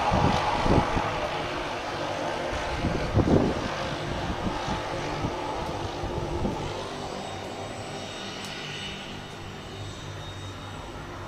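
Twin-turboprop airliner running along the runway at power, a steady engine and propeller drone that fades as it moves away. Two short low thumps about one and three seconds in.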